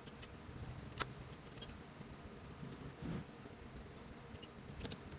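Faint, scattered clicks and light metal ticks of bolts being handled and started by hand into the shifter's mounting holes, with a sharper click about a second in and a few more near the end.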